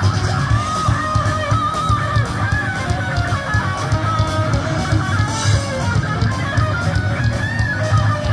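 Live rock band playing loudly, an electric guitar carrying a wandering melody over a pounding drum kit and bass, heard from within the audience.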